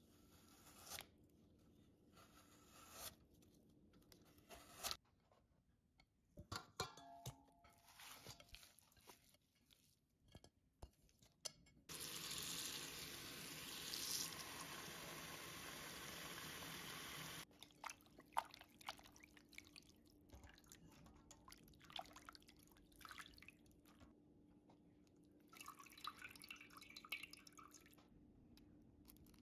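A kitchen tap running into a stainless steel bowl of sliced raw beef for about five seconds, starting and stopping sharply, to soak the meat. Around it come scattered small clicks and handling knocks, with water dripping into the bowl near the end.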